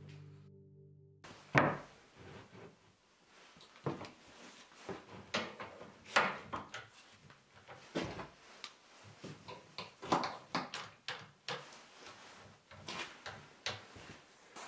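Irregular short strokes of a hand woodworking tool, such as a spokeshave, working the wood, about one every half second to a second. The loudest comes just after a ringing music tone fades out about a second in.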